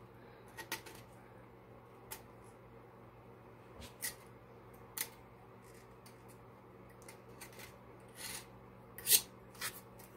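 X-Acto knife blade scraping cured epoxy off the rim and inside of a stainless steel tumbler: scattered short scrapes and clicks, the loudest about nine seconds in.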